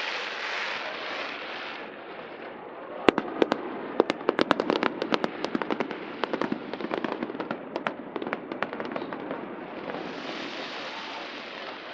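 Fireworks going off: a rapid run of sharp cracks begins about three seconds in, comes thickest soon after, and thins out near the end, over a steady rushing noise.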